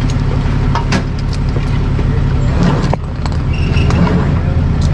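Truck engine running steadily, with scattered clicks and knocks over it; a little after the midpoint it dips briefly and then runs louder.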